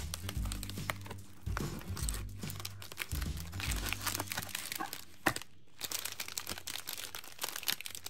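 Crinkling and crackling of cellophane box wrapping and foil-wrapped marshmallow bunny candy bars being torn open and handled, with a sharp click a little past the middle.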